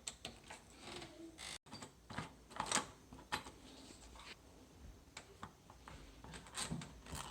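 Faint, scattered clicks and ticks of a Phillips screwdriver working the screws out of metal door-lock hardware, with a brief dropout of sound about one and a half seconds in.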